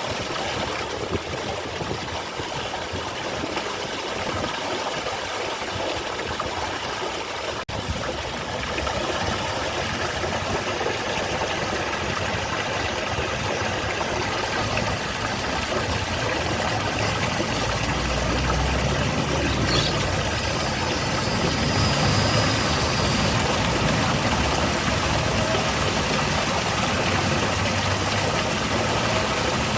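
A small garden waterfall, water falling and splashing in a steady, continuous rush that grows slightly louder after about eight seconds.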